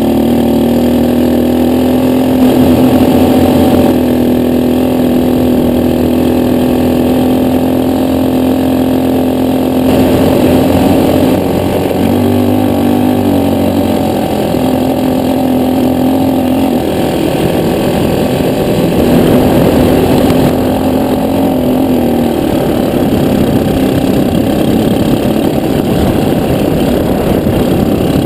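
Jaguar Agro quad bike's engine running while the quad is ridden over sand. Its pitch holds steady for the first several seconds, then wavers and dips several times past the middle as the throttle changes.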